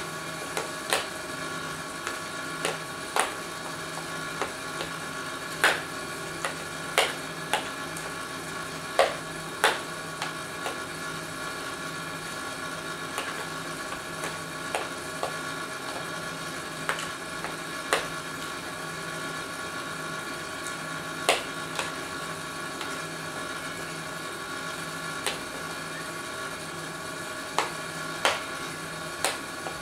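A utensil scraping and tapping against plastic pet bowls while canned cat food is portioned out, giving irregular sharp clicks, a dozen or more, over a steady electrical hum.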